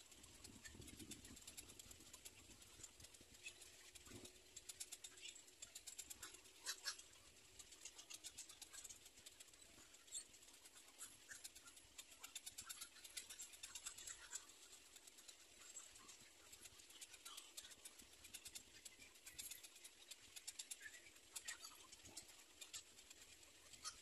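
Faint outdoor background: scattered short bird chirps over rapid, high-pitched ticking, a little stronger about seven seconds in and again near the end.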